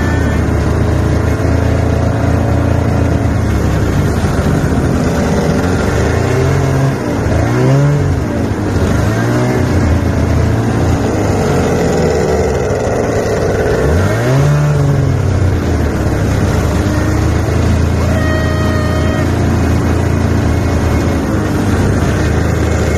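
Snowmobile engines running under way, with the engine pitch rising and falling in revs a little over a third of the way in and again past the middle.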